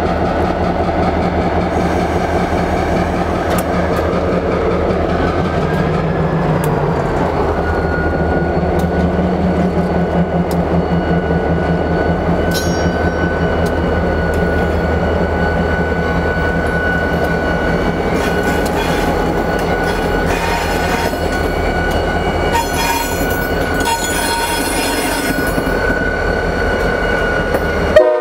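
Diesel-electric freight locomotives passing close by, engines running with wheels rolling on the rails. A high whine rises about six seconds in and then holds steady over the engine sound.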